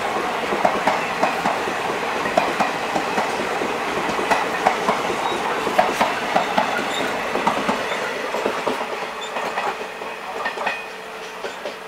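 Express train coaches passing close on the adjacent track, their wheels clattering over the rail joints in a quick, irregular clickety-clack. The clatter fades away over the last few seconds as the final coach goes by.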